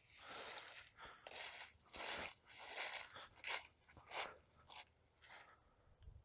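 Branches of a slowly falling dead tree rubbing against a neighbouring tree: faint, irregular crunching and scraping bursts, about one every half second to a second, showing the tree is still moving.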